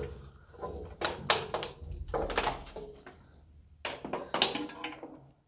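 Several clusters of short scuffs and thumps, bunched around a second in, two seconds in and about four seconds in, then dying away near the end.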